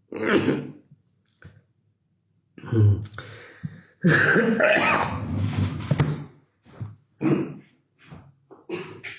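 A man's coughing fit: a run of harsh coughs, with one long hacking stretch about four seconds in. The lingering cough of a COVID-19 infection.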